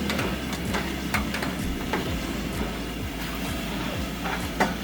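Irregular sharp pops and knocks, a few a second, over a steady low rumble, from pork cooking down in lard for chicharrones.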